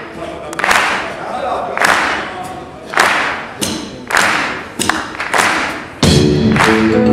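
Voices shouting together on a steady beat, about one shout a second, each with a thud. About six seconds in, the full band comes in loudly.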